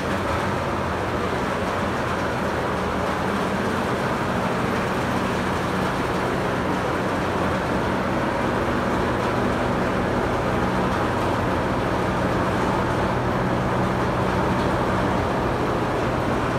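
Steady rushing of large electric drum fans running, with a low hum under it.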